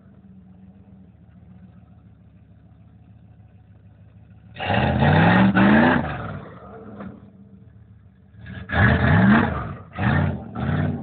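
Lifted Jeep Grand Cherokee's engine running low under light throttle, then revving hard twice with rising pitch as it climbs the dirt mounds, followed by short quick throttle blips near the end.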